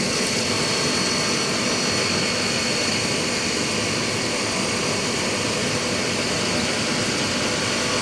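Haas CNC vertical mill running a roughing pass in aluminum: steady machining noise with a thin, high, steady whine over it.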